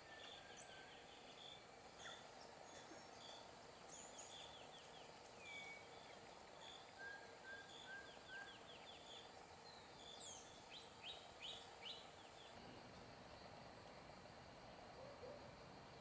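Faint calls of several small songbirds: short chips, quick runs of down-slurred notes, and a few short whistled notes.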